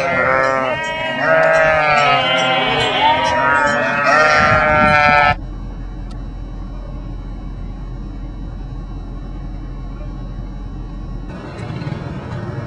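A flock of sheep bleating, many calls overlapping. They cut off abruptly about five seconds in, leaving a quieter steady hum with faint high tones.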